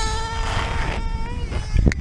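High-pitched buzz of a small nitro glow engine in a 1/10 RC touring car, running at high revs and heard close up. The pitch holds steady with a slight dip about 1.3 s in, and there are a couple of low bumps near the end.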